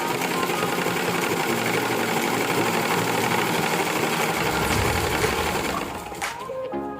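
Sewing machine running at a steady fast stitch, stopping about six seconds in as background music comes back in.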